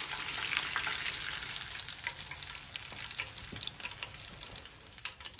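Battered lobster tail deep-frying in hot oil: a steady sizzle with scattered crackles, fading gradually as the tail is lifted out of the oil.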